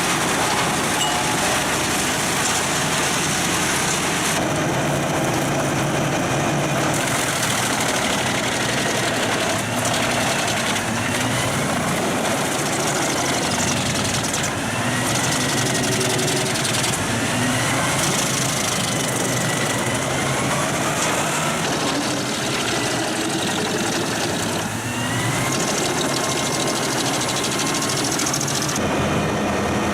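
Large forestry wood chipper running under load, its engine and cutting drum chipping wood in a dense, continuous noise. The pitch rises and falls every few seconds as the load changes.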